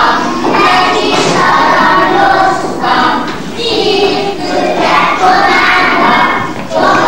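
A group of kindergarten children singing a song together in unison, in phrases a few seconds long.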